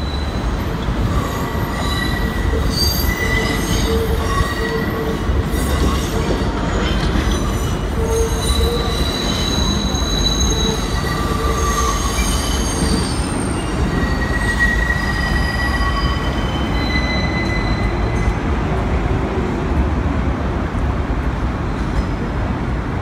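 NYC subway train running on curving track: a steady rumble with the wheels squealing in several high tones that come and go.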